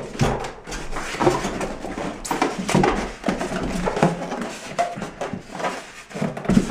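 Packaging being handled inside a cardboard box: a large insert is gripped, lifted and shifted, with irregular rubbing, scraping and small knocks against the carton.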